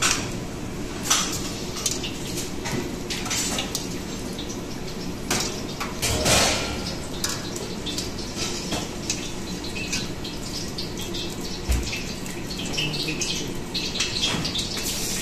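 Paneer papad rolls deep-frying in hot oil in a wok: a steady bubbling sizzle, with the wire spider skimmer clinking against the pan now and then.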